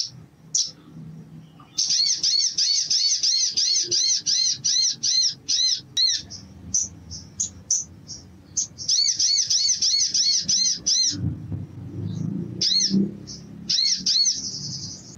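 Olive-backed sunbird (sogon) singing: fast runs of high, arching chirps at about four a second, in three bursts with scattered single chips between them.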